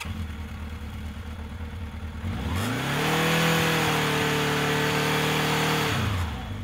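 Engine idling, then revved up about two and a half seconds in, held steady at higher revs for about three seconds, then dropping back toward idle.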